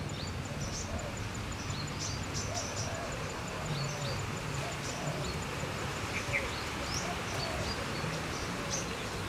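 Outdoor ambience of many birds chirping, with short high calls scattered throughout over a steady low rumble. A fast, even high ticking runs through the first second and a half.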